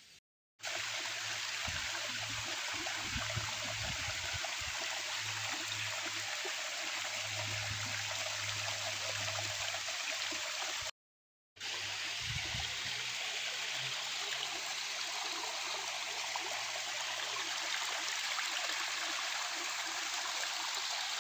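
Stream water running steadily with an even rushing sound; it cuts out briefly about halfway through.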